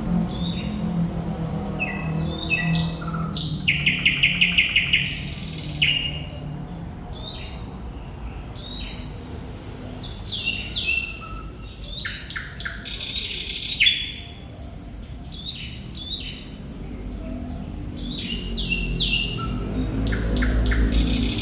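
Thrush nightingale singing: a run of varied whistled phrases, with a fast rattle of repeated notes about four seconds in and loud clicking notes in the middle and again near the end.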